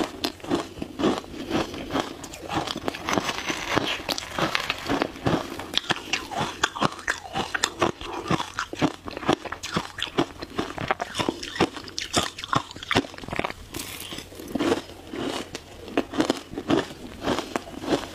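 Someone chewing mouthfuls of crushed shaved ice close to the microphone: a dense, continuous run of sharp crunches and crackles.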